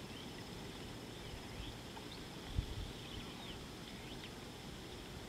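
Faint outdoor ambience of small birds chirping here and there over a steady, high insect trill, with one low thump about halfway through.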